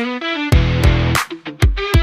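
Background music: a guitar-led track over a steady drum beat.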